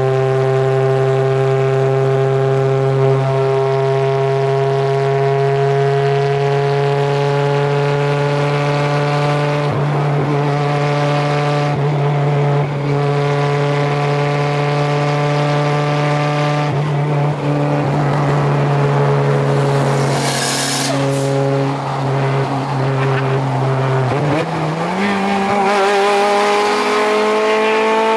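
K20-swapped Honda Civic's four-cylinder engine on open headers pulling hard at highway speed, its note climbing slowly and steadily. Near the end there is a gear change, and the pitch drops and then climbs again quickly.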